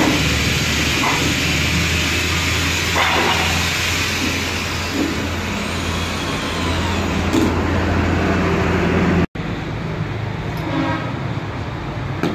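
Electric hand drill running steadily as it bores into a galvanized steel sheet, a continuous motor drone. It cuts off abruptly about nine seconds in, and a lower background noise carries on.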